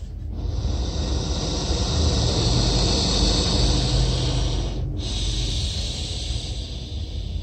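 Savannah monitor lizard hissing: a long, loud breathy hiss that breaks off briefly about five seconds in, then a second hiss that fades near the end, over a steady low rumble.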